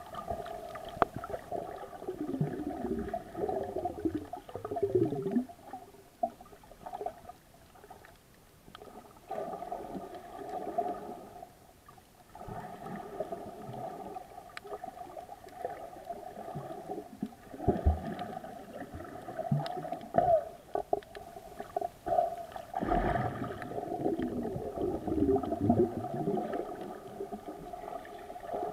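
Muffled underwater water sound heard through a camera's waterproof housing: gurgling and sloshing that swells and fades every few seconds, with a few faint clicks.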